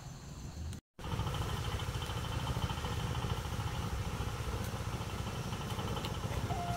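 A steady low engine-like rumble, broken by a brief drop-out about a second in. A steady high tone comes in near the end.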